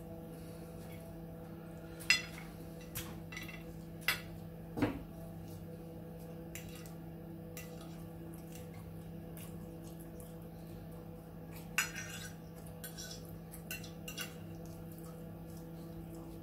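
Metal fork and knife tapping and scraping against a dinner plate, in scattered irregular clinks, over a steady low hum.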